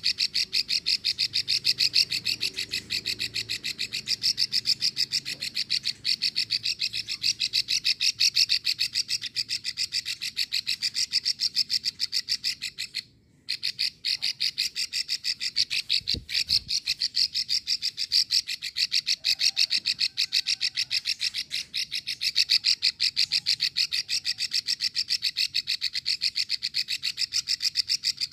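Female plain prinia (prenjak sawah) giving its long 'ngekrek' call: a fast, even run of dry clicking notes, many per second, that breaks off briefly about halfway through. This is the female call used to draw a male into calling.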